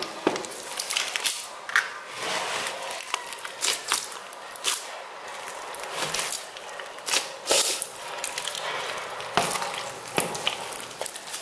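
Hands squeezing, pulling and kneading a big mass of sticky slime mixed with foam beads: wet squishing with irregular sticky pops and clicks.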